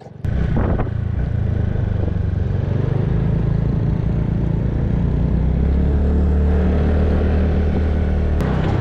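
Scooter engine running steadily under way, a low drone with a hiss of road and wind noise over it, starting abruptly just after the beginning.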